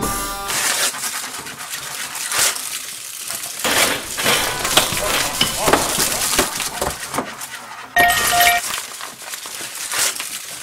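Many short clinks and clatters of small hard objects being handled, with voices in the background and a short steady tone about eight seconds in.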